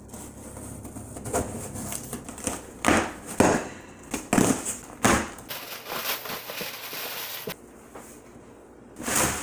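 A cardboard shipping box being slit open with a kitchen knife and its flaps pulled back: irregular scrapes and knocks. Crumpled kraft-paper packing then rustles and crackles as it is pulled out, with a louder knock near the end.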